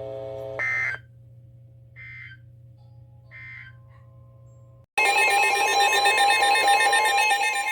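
Emergency Alert System end-of-message code: three short buzzy data bursts about a second apart. About five seconds in, the next alert's loud two-tone attention signal starts and holds steady.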